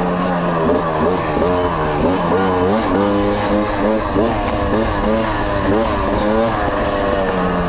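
TM EN 300 fuel-injected 300 cc single-cylinder two-stroke enduro engine revving up and down over and over as the throttle is worked on twisty singletrack.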